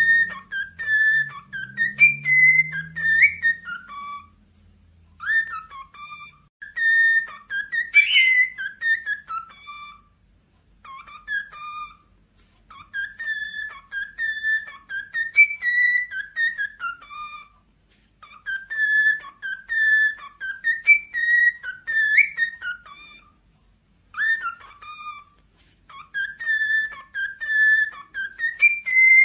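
Cockatiel whistling the same short tune over and over, with brief pauses between phrases. Each phrase holds a steady note and then drops lower at its end.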